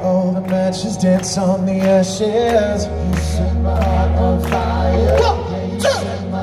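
Live rock band playing a song: electric guitars and drums with sung vocals over them, the low end swelling about two and a half seconds in.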